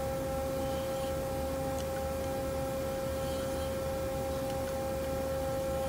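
Steady machine hum with a held mid-pitched tone from a powered-up Doosan Lynx CNC lathe standing by during tool setting.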